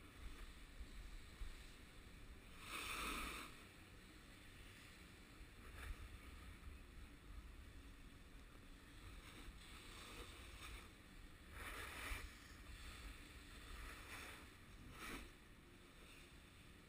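Faint swishes of a snowboard's edge scraping across groomed snow as the rider turns, about five times, over a steady low rumble.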